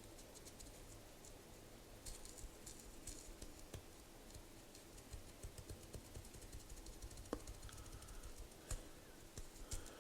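Faint, quick, irregular scratching and ticking of a small skewer scraping dust off the top of a vintage Eveready automatic petrol lighter, starting about two seconds in.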